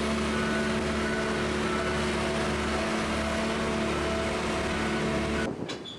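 Boat travel lift's engine running as it carries a hauled-out sailboat: a steady drone with several held tones on top. It cuts off suddenly near the end.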